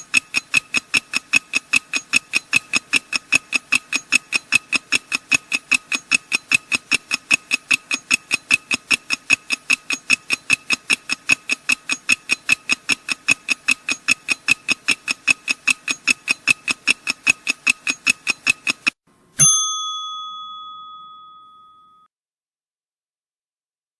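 Countdown timer sound effect: steady pitched ticking, about three ticks a second, for nearly 19 seconds. It ends in a single bell ding that rings out for about two and a half seconds, marking that time is up.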